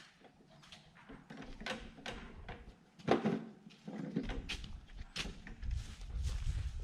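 Scattered knocks and clunks of equipment being handled, the loudest about three seconds in, with a low rumble from about four seconds on.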